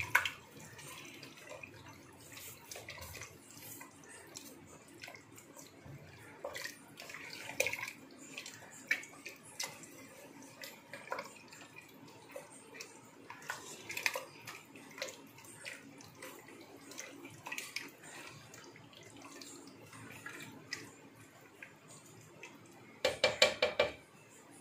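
Duck pieces being mixed by hand into thin coconut milk in an aluminium pot: soft wet sloshing with scattered light clicks. Near the end comes a quick run of louder knocks as a wooden spatula stirs against the pot.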